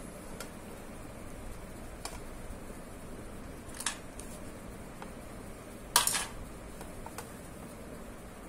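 Light clicks and clinks against a stainless steel plate as hands roll epoxy clay into a thin rope on it. The loudest is a short clatter about six seconds in, all over a low steady hiss.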